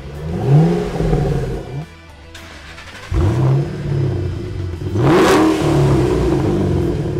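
Ford Shelby GT500's supercharged V8 revved in short blips through the stock exhaust, then, after a brief lull about two seconds in, revved again several times through a Borla multi-core aftermarket exhaust. The loudest blip comes about five seconds in.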